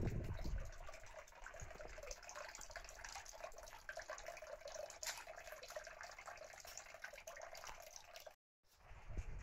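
Faint trickling and dripping water, a steady patter of small splashes, which cuts out briefly near the end.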